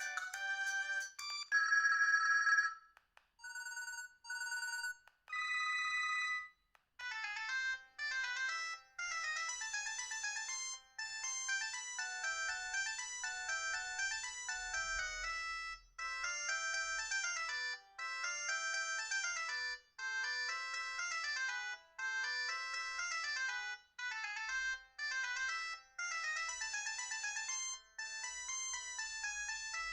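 Binatone BB200 mobile phone ringtones previewed one after another: the end of one tune, a loud held tone, a few short beeps, then from about seven seconds in a longer electronic tune in repeated phrases.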